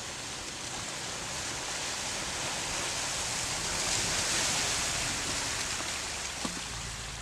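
Range Rover Sport's wheels churning through mud and puddles, a steady splashing wash that grows loudest as the car passes close, about four seconds in, then eases off. A single short click comes near the end.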